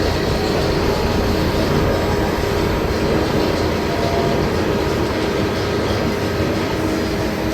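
Alpina Blitz steel roller coaster heard from on board during the ride: a loud, steady rush of wind with the rumble and hum of the train's wheels on the track.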